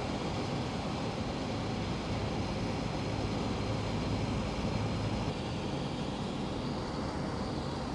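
Steady road and engine noise of a moving car, heard from inside the cabin, with a low, even hum.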